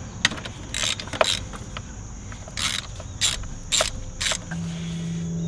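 Ratchet wrench with a 13 mm socket clicking in about six short bursts as it loosens the bolt holding a knock sensor to the engine block.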